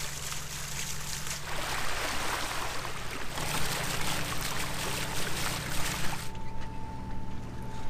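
Water rushing and splashing along a catamaran's hull as the bow pushes through calm sea, over a steady low engine drone. The rushing drops away about six seconds in, leaving the drone and a thin steady whine.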